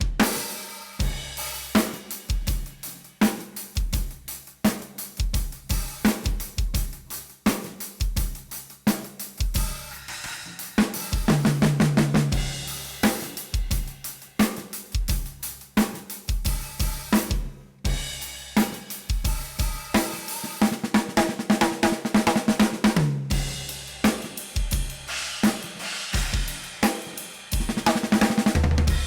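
Hendrix Pure Ply Bubinga drum kit with a 13x7 aluminum snare and Samsun cymbals, played freely in a loose jam of kick, snare, hi-hat and cymbal hits. Two fast rolls break up the groove, and there is a very short pause a little past halfway.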